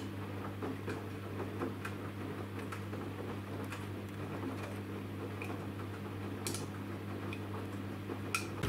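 Samsung WW10N645RBW front-loading washing machine in its wash cycle: the drum turns with a steady low hum while the laundry tumbles, giving frequent light clicks and clinks.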